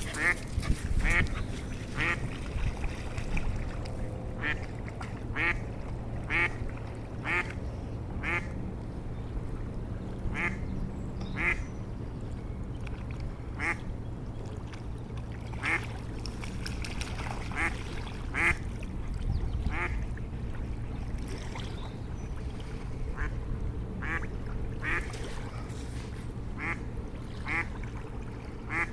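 Ducks quacking in short calls every second or so, over a steady rush of running water.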